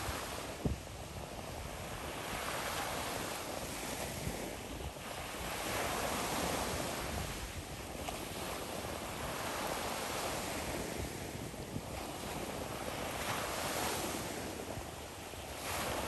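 Sea waves breaking and washing near shore, swelling and easing every few seconds, with wind rumbling on the microphone.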